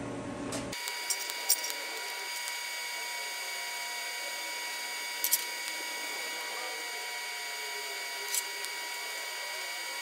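TIG welding arc on a steel box: a steady hiss with a thin, constant high whine, starting about a second in, with a few faint clicks.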